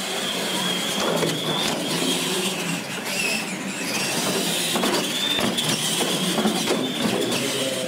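Radio-controlled monster trucks racing on a concrete floor, their electric motors and gears giving a high whine that shifts slightly with the throttle, over the rattle and rumble of the trucks and tyres.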